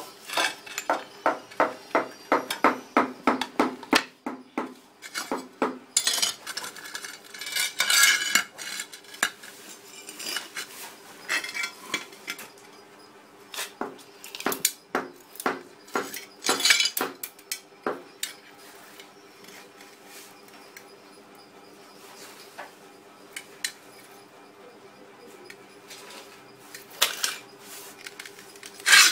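Glazed ceramic wall tiles clicking and clinking against each other and the floor as they are handled and laid out. A quick run of sharp clicks fills the first dozen seconds, then sparser taps come in short clusters, with a faint steady hum underneath.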